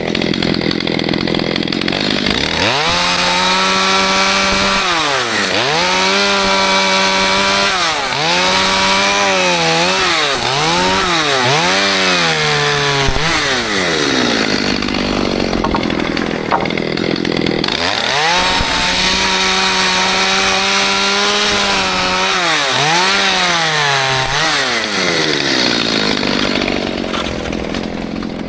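Stihl MS211 two-stroke chainsaw working wood, run up to full throttle and held there, its pitch dipping and recovering several times as the revs drop and pick up again. There are two such stretches, with rougher, lower-running spells between them.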